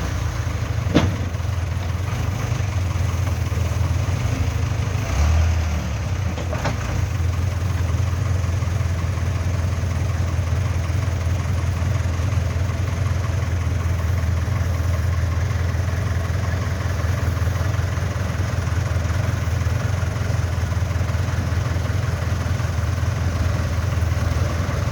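Case 580K backhoe loader's diesel engine running steadily at a constant pace, with a short sharp knock about a second in and another near seven seconds.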